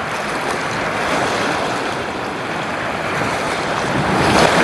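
Rushing river water, a steady noise that swells louder near the end.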